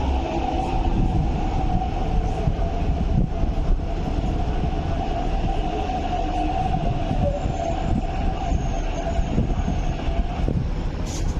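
MTR East Rail Line R-train electric multiple unit pulling in alongside the platform and slowing, a low rumble under a steady whine that cuts off about ten seconds in as the train comes to a halt.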